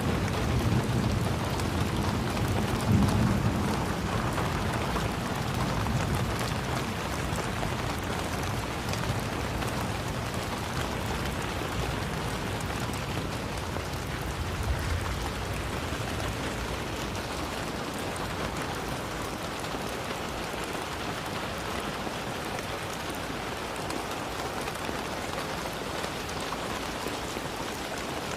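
Steady rain falling, an even hiss of drops. A low rumble of thunder fades away over the first few seconds.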